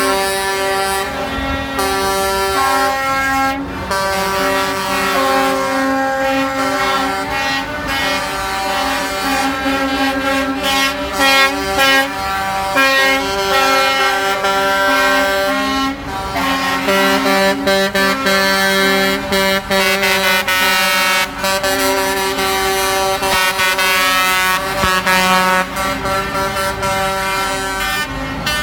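Cement mixer trucks blowing their air horns almost without a break, several horns at different pitches overlapping in long held blasts, over the rumble of the trucks' diesel engines.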